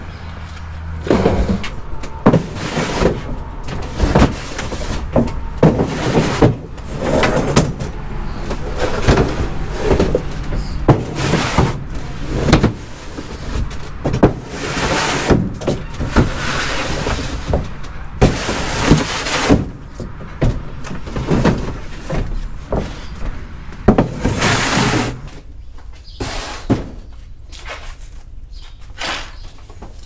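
Plastic produce crates and cardboard boxes being handled, stacked and shoved around a produce trailer: repeated knocks, thuds and scraping clatter, thinning out near the end.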